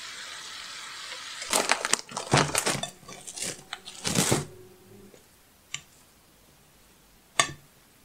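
A steady hiss from the pan of fried ground-beef filling for the first second and a half, then a clear plastic bag crinkling and rustling sharply over a glass bowl of bulgur and semolina for about three seconds. Two light clicks follow.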